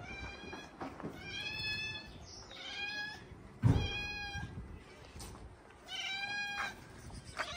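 Kittens meowing: about six short, high-pitched calls in turn, with a low thump about halfway through.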